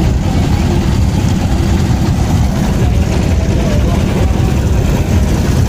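A boat's engine running steadily, a heavy low rumble, with voices faint beneath it.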